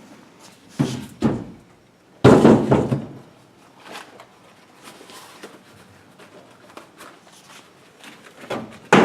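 Clunks and knocks of the emulsion scoop coater and its soaking container being handled: two knocks about a second in, a heavier clunk a little after two seconds, a few light taps, then another sharp knock near the end.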